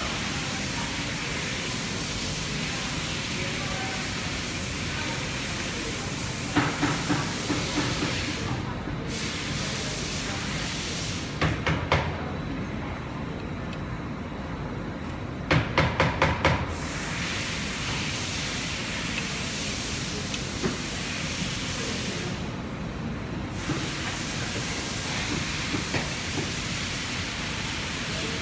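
Steady hiss with three short runs of sharp clicks or taps: a few, then a few more, then about six in quick succession near the middle.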